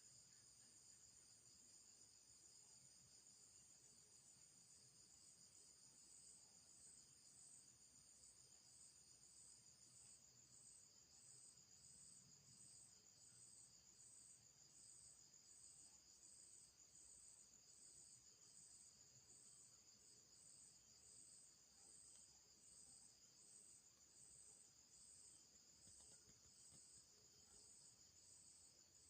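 Faint, steady high-pitched insect chirring. From about ten seconds in, its highest note pulses at a little over one beat a second.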